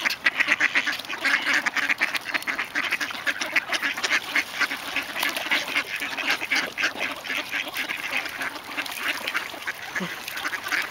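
A large flock of mallards quacking continuously, many short calls overlapping into a dense chatter, as the ducks crowd in for bread.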